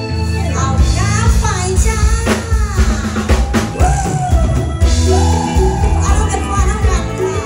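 Live band playing: a woman sings into a microphone over a drum kit, electric guitar and keyboard, her voice coming in about half a second in.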